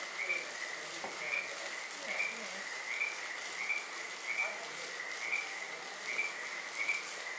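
Frogs calling steadily outdoors at night, a repeated chirping call about once a second.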